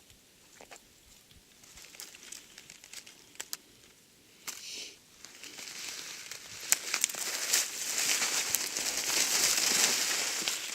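Rustling and crackling with scattered sharp clicks, growing louder about five seconds in and staying loud.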